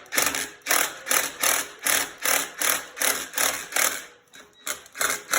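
Impact wrench hammering in short pulses, about three a second, driving a puller bolt to press the seized crankshaft pulley off a Farmall A's crankshaft. There is a brief pause near the end.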